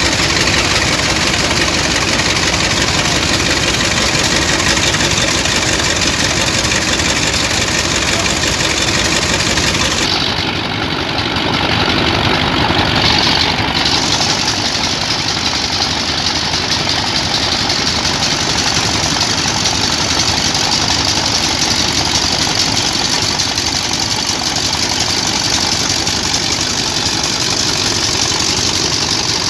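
Boat dredger's engine and centrifugal sand pump running steadily, with sand-water slurry gushing out of the discharge hose. About ten seconds in, the high hiss drops away for a few seconds, then comes back.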